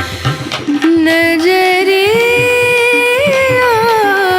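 Background music: a Hindi film-style song, a singer holding a long note that slowly rises and then falls, over percussion.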